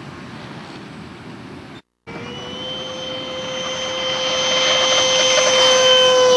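An RC model jet's engine gives a steady high whine that grows louder over about four seconds. It starts just after a brief cut in the sound about two seconds in.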